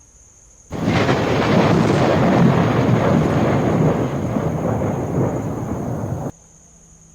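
A loud, thunder-like rumble that starts suddenly less than a second in and cuts off sharply about five and a half seconds later.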